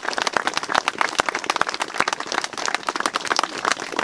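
A small crowd applauding, a dense patter of hand claps, with one person's claps close by and loudest.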